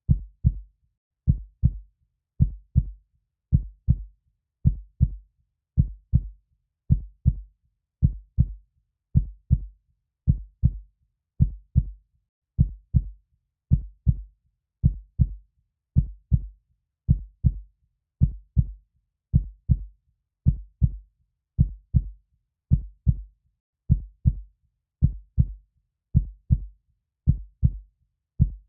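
Heartbeat sound: steady, evenly paced lub-dub double thumps, deep and low, repeating without change.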